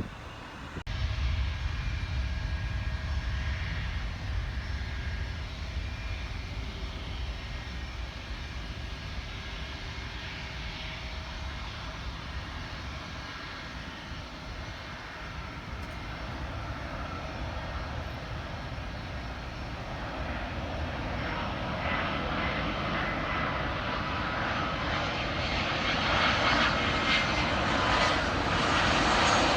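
Jet airliner's engines rumbling with a steady whine, growing louder over the last ten seconds as the aircraft draws closer.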